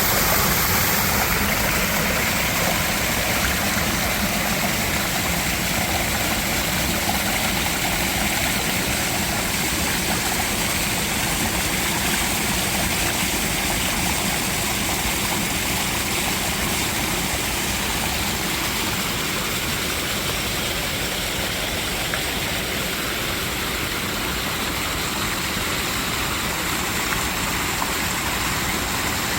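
Mountain valley stream rushing over rocks: a steady, dense wash of flowing water.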